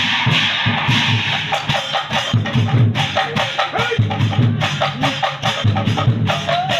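Nagara naam ensemble: large brass cymbals (bortal) clashing and nagara drums beating a fast, driving rhythm. A sung melody line comes in over the percussion about a second and a half in.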